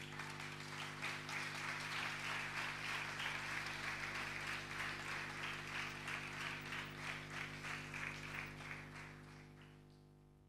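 Audience applauding, the clapping starting at once and fading away near the end, over a steady electrical hum.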